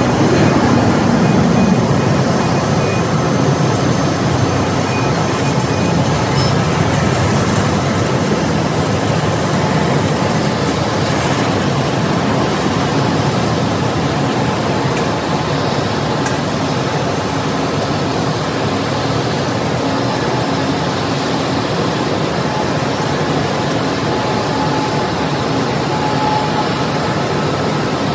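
Steady distant rumble of airport engine noise from taxiing jets and apron traffic, even and low, with no distinct events.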